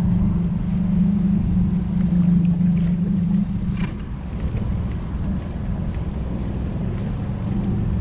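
Small boat's outboard motor running steadily with a low drone while trolling, the drone dropping to a lower level about three and a half seconds in. A short click comes just before four seconds.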